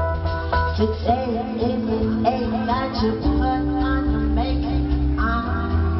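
Live band music: electric guitar, bass guitar, drums and keyboards playing together, with a wavering melodic line over a strong bass.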